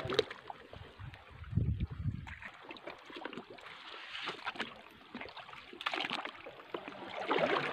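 Shallow seawater splashing and sloshing as someone wades among rocks in a tide pool, with scattered small clicks and a brief low rumble about two seconds in.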